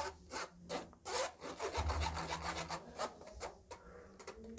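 Flour being rubbed by hand through a stainless-steel wire-mesh sieve. It makes repeated raspy scraping strokes, about two or three a second, that grow fainter near the end.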